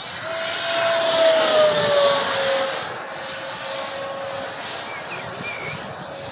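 Freewing MiG-29 RC jet's twin electric ducted fans whining as it flies past overhead, with a rushing sound that swells about one to two seconds in and then fades. The whine's pitch drops slightly as the jet passes.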